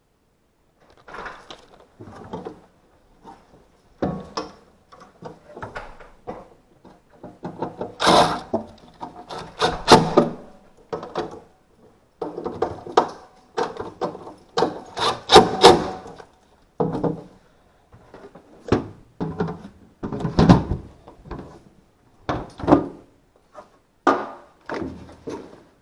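Irregular knocks, thuds and short scraping noises of things being handled and set down, some strikes louder than others.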